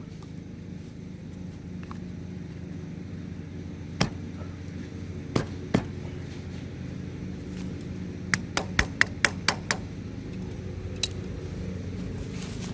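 Hammer taps on metal as a dust cap is driven onto a lawnmower wheel hub. There is a single tap, then two, then a quick run of about eight, and a last one, over a steady low hum.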